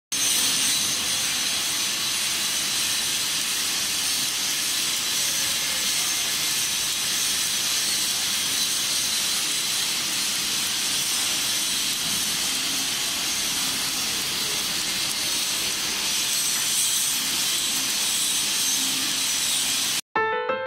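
MIG welding arc hissing steadily, with no pauses in the sound until it cuts off sharply just before the end.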